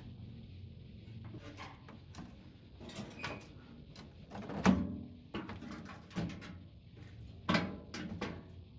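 Irregular knocks, clicks and scrapes of metal parts being handled while a microwave oven is dismantled, with two louder knocks about halfway through and near the end.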